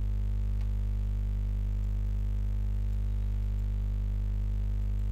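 Steady low electrical hum with a stack of evenly spaced overtones, unchanging throughout, with a faint click about half a second in.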